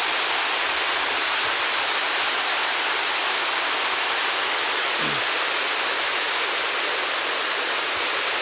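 Steady rushing of a small mountain stream tumbling down a waterfall, an even hiss of water at a constant level.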